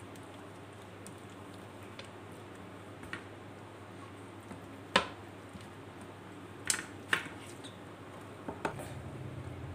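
Hands rubbing a wet spice paste onto fried chicken pieces on a plate: soft squishing, with a few sharp clicks against the plate, the loudest about five seconds in. A steady low hum sits underneath.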